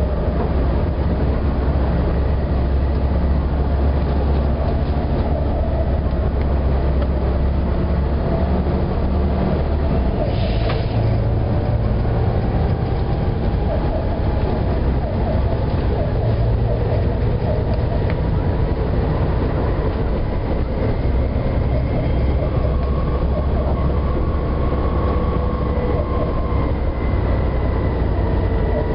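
Volvo B7TL double-decker bus running, its diesel engine droning low and changing note a couple of times, with a faint wailing squeak that slides up and down in pitch and comes back every few seconds. A brief sharp hiss or clatter sounds once, about ten seconds in.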